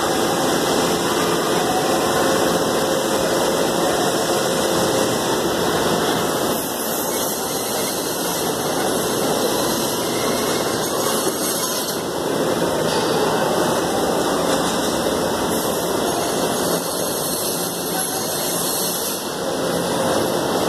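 Steady loud mechanical din of slaughterhouse processing-line machinery: an even rushing noise with no clear beat or pitch.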